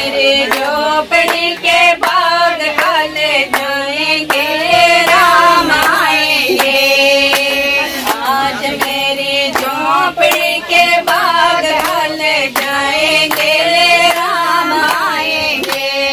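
A group of women singing a Hindu devotional bhajan together, with hand clapping in a steady beat.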